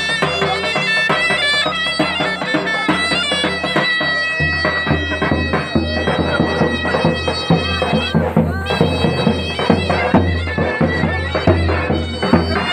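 Loud folk dance music for a line dance: a reed wind instrument plays a fast, ornamented melody over a steady low beat.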